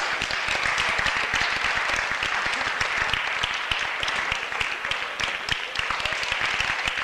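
Audience applauding steadily with dense hand-clapping for a wrestler declared the winner.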